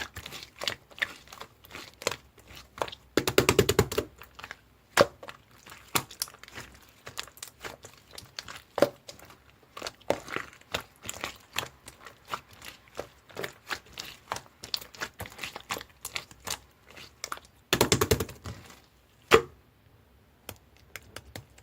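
Slime being squished and pressed by hand, making irregular sticky clicks and pops, with two runs of rapid crackling pops about three seconds in and near the end.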